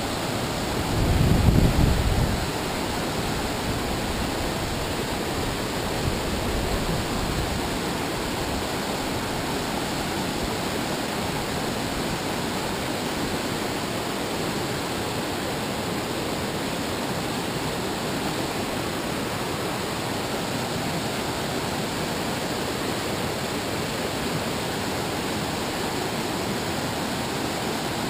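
River rapids rushing over rocks: a steady, even hiss of whitewater. A brief louder low rumble comes about a second in.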